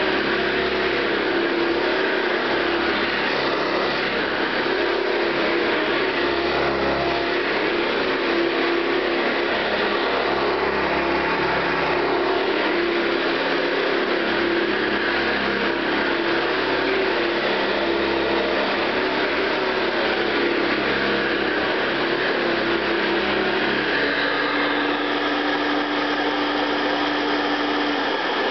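1970s Hoover Convertible upright vacuum cleaner (model U4127) running steadily, its motor giving an even hum and rush of air; near the end the hum drops slightly in pitch.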